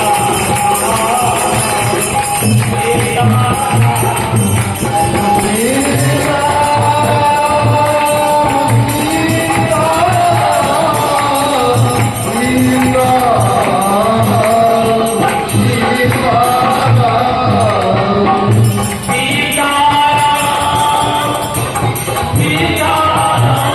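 Kirtan devotional music: a harmonium melody over a steady low drum beat, with constant jingling percussion.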